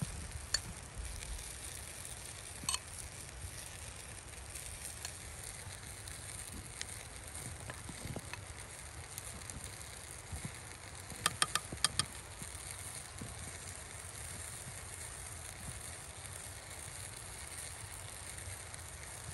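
A metal spoon clinking against small glazed clay pots as tomato paste is knocked off into them: single clinks early on, then a quick run of about five near the middle, over a steady hiss.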